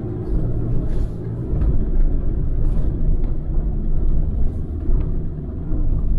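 Force Gurkha's diesel engine running steadily as the 4x4 drives over a rough off-road track, heard from inside the cabin, with a few short knocks from the vehicle about one and three seconds in.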